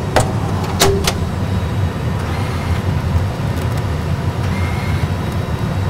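Steady low rumble of an Airbus A320 cockpit, engines at idle while the aircraft lines up on the runway, with a few sharp clicks in the first second or so.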